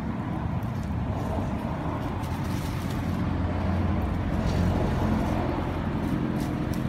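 Steady low engine hum of a motor vehicle, swelling slightly around the middle and easing again.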